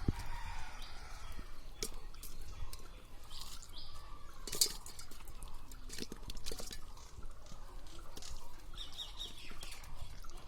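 Birds chirping in short high notes, with a quick run of chirps near the end, over a low background rumble and scattered sharp clicks.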